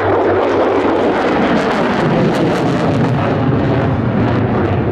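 F-35A Lightning II's Pratt & Whitney F135 turbofan at full afterburner, a loud steady roar as the jet climbs steeply.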